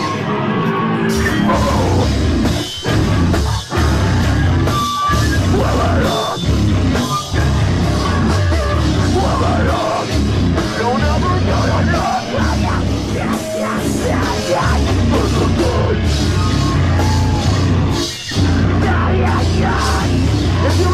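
Live heavy rock band playing loud, with distorted guitars, bass and drum kit, recorded from inside the crowd. The band cuts out for a split second several times, as stop-hits in the riff.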